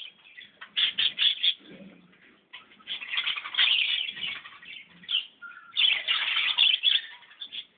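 Birds chirping in quick runs of short, high notes, with a couple of brief lulls.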